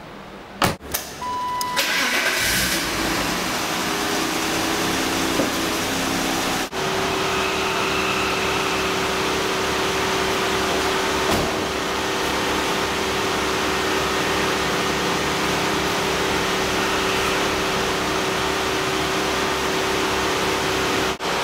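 A thump and a short beep, then a BMW E34 5 Series engine starting about two seconds in and idling steadily.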